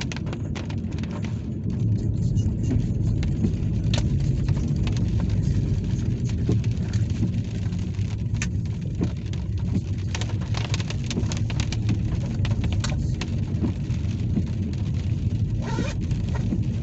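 Inside a moving car in heavy rain: a steady low road and engine rumble, with many raindrops ticking sharply on the windscreen and roof.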